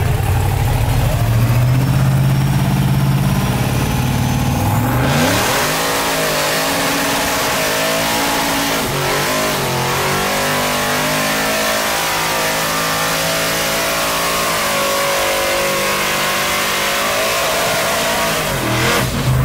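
Lifted GMC Sierra mega truck's engine idling, then revving hard about five seconds in as it goes into a burnout. It is held at high revs with the huge tyres spinning and smoking, wavering up and down, and backs off near the end.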